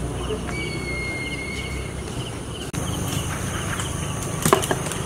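Outdoor background of insects chirping in short repeated notes over a steady hiss; the background changes abruptly partway through. A brief sharp crackle comes near the end.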